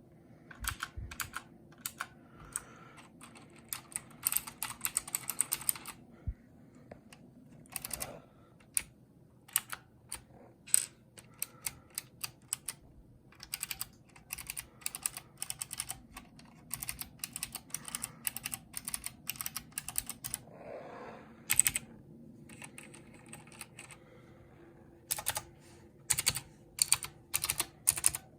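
Mechanical keyboard with blue switches being typed on: quick, irregular runs of sharp clicky keystrokes, broken by a couple of short pauses.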